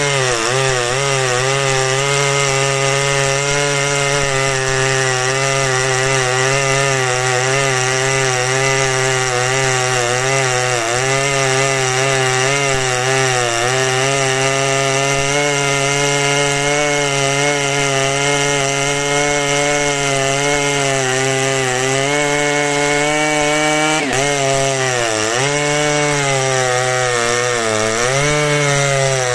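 A big two-stroke chainsaw of around 120 cc running under load through a cut in hard, dry beech. The engine note sags and recovers slightly over and over as the chain bites. Near the end it bogs down more deeply twice.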